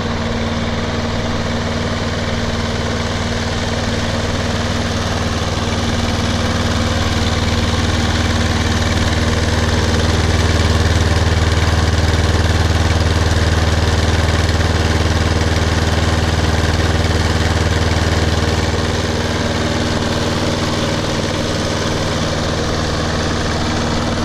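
Snapper 21-inch walk-behind lawn mower's small Briggs & Stratton engine running steadily at low throttle, warming up just after starting; it swells slightly for several seconds in the middle.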